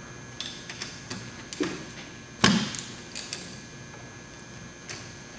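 Socket ratchet clicking in irregular short bursts as a 13 mm wiper-arm nut is turned off its stud, with one louder knock about two and a half seconds in.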